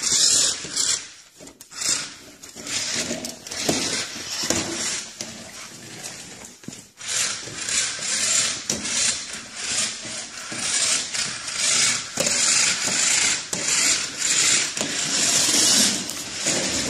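Small toy car's electric motor and gears whirring in stop-start spurts across a hardwood floor, with the clatter of its wheels; louder and more continuous from about seven seconds in.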